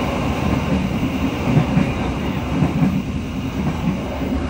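Passenger train carriage running along the track, heard from inside: a steady low rumble of the wheels on the rails.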